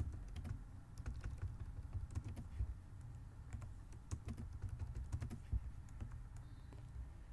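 Typing on a computer keyboard: quick, irregular key clicks over a low steady hum.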